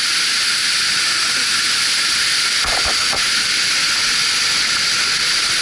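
Havasu Falls plunging into its pool: a steady, loud rush of falling water, with a couple of soft low thumps about three seconds in.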